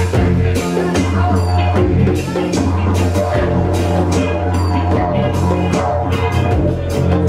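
Live world-fusion band playing: a didgeridoo's loud low drone, broken by short breaths, over conga and hand-drum beats, with electric guitar and bass.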